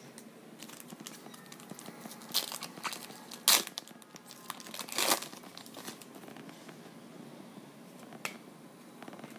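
Baseball card pack wrapper tearing open and crinkling in several short bursts, the loudest about three and a half seconds in.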